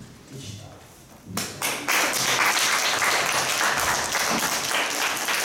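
Audience applauding, starting suddenly about a second and a half in and then going on at an even level.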